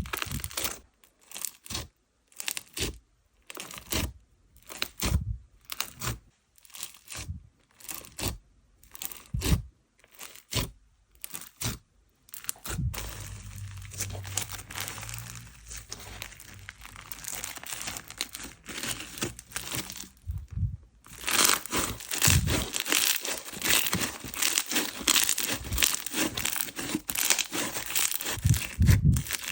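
Slime being pressed, squished and stretched by hand, making crackles and pops. For the first dozen seconds these are separate pops and clicks with gaps between them. After that comes a steadier squelching texture, and from about two-thirds of the way in a dense crackling.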